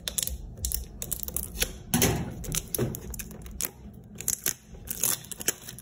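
Clear plastic shrink-wrap on a small product box crinkling and tearing as it is cut with scissors and peeled away, in a run of irregular crackles that are loudest about two seconds in.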